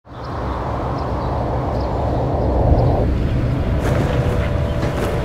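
Steady low rumble of city ambience with distant traffic, fading in from silence at the start. A faint held tone joins near the end.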